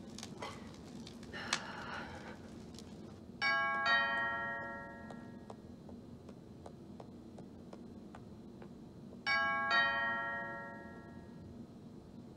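Doorbell chiming ding-dong, two notes that ring out and fade, rung twice about six seconds apart.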